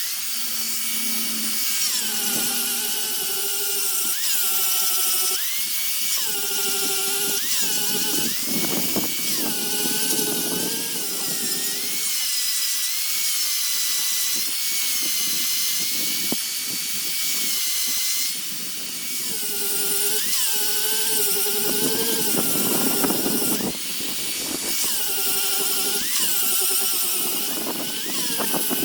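A power tool working wood, its motor speed dropping and rising again and again as it takes and releases the load.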